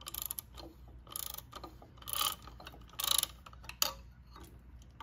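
Socket ratchet clicking in quick bursts about once a second as it is swung back between strokes, turning a 7/16 socket on an extension to loosen a starter solenoid mounting bolt.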